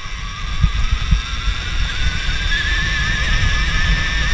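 Electric motor of a 2018 Alta Redshift MXR dirt bike whining under way. Its pitch rises about two seconds in as the bike speeds up, over a low rumble with knocks from wind and the trail.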